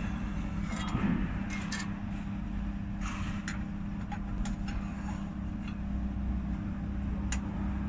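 Steady low machine hum, with scattered light clicks and scrapes of thin metal sheets being lifted off and laid down on a laser cutting machine's bed.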